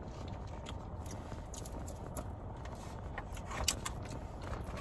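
Close-miked eating sounds: soft chewing with scattered small wet mouth clicks, one sharper click near the end, over a steady low background hum.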